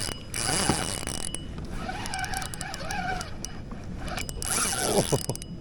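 Penn Battle III 4000 spinning reel's drag buzzing in two spells as a big redfish pulls line off against it, with a wavering tone between them.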